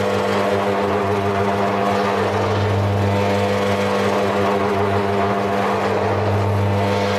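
V-type powder blender running: the drive motor and gear reducer hum steadily while the V-shaped stainless steel vessel rotates. The low hum swells and eases every second or two.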